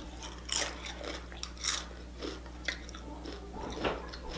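Tortilla chips dipped in salsa being bitten and chewed close to the microphone: a string of crisp crunches at irregular intervals.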